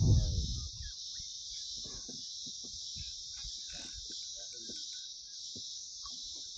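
A steady, high-pitched chorus of insects, with a short vocal exclamation at the start and a few faint knocks and clicks after it.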